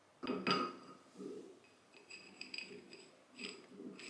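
Steel sliding handle of a restored bench vise clinking against the vise's screw head as it is fitted: two sharp ringing metal clinks at the start, then a string of lighter irregular metallic ticks.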